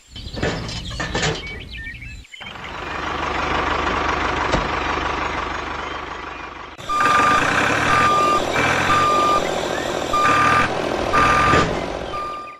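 A vehicle's reversing alarm beeping repeatedly at one steady pitch over running engine or motor noise, the beeps starting about seven seconds in. Before that there is only steady mechanical noise, broken by abrupt cuts in the first two seconds.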